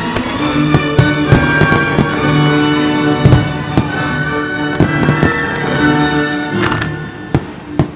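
Aerial firework shells bursting with sharp, irregular bangs over loud show music with held notes. The music drops lower near the end.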